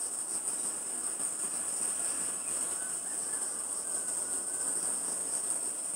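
Insects chirping in a steady, high-pitched drone.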